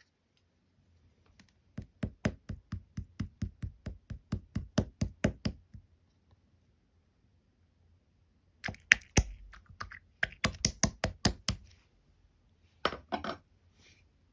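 Jelly-like slime being pressed and poked by hand, giving quick sharp clicks and pops at about five a second. Two runs of clicks with a pause between them, then a short burst near the end.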